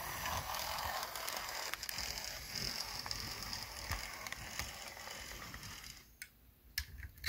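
Brass 00 gauge GWR 8750 pannier tank model locomotive running along the track. Its motor and gears whirr steadily, with small clicks. The sound drops away about six seconds in, leaving a few sharp clicks near the end.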